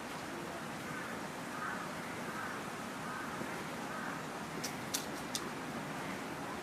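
Faint short bird calls, several in a row, over a steady hiss of outdoor background noise, with three sharp clicks about five seconds in.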